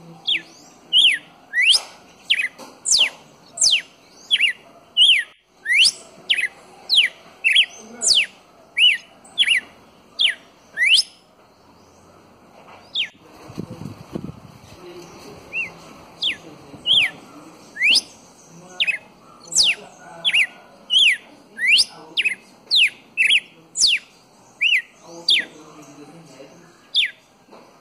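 Red-cowled cardinal calling: a long series of short, sharp, upward-sweeping whistled notes, about two a second, with a pause of a few seconds about halfway through.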